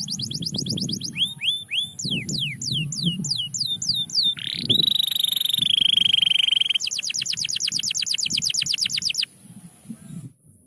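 Domestic canary singing in tours: repeated fast downward-sweeping notes, then a rising note that turns into a rolling trill, then a very rapid trill. The song stops about nine seconds in.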